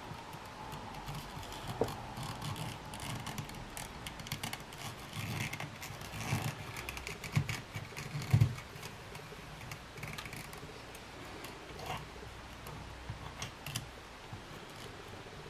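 Hand-stitching thin leather: thread drawn through the holes and the leather and needle handled, a scatter of small clicks and rustles, with a few sharper knocks, the loudest a dull one about eight seconds in.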